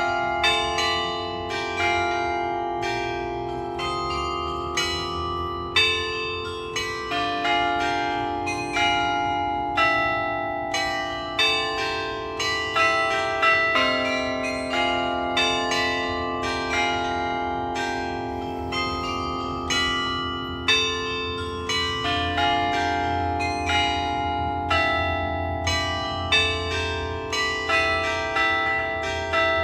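Carillon bells of a glockenspiel clock tower playing a slow melody. Notes are struck about once a second, and each rings on under the next.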